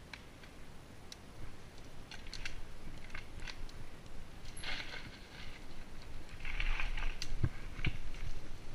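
Mountain bike rolling along a dry dirt forest trail: tyres crunching over dead leaves and twigs, with scattered clicks and rattles from the bike and a few heavier knocks near the end as it goes over bumps.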